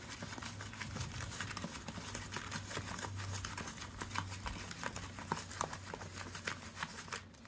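Homemade borax slime being kneaded and squished by hand in a plastic tub: a steady run of many small clicks and pops.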